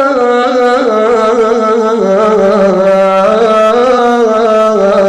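A man's voice singing one long, ornamented melismatic line with no clear words, the held notes wavering and stepping down in pitch about two seconds in.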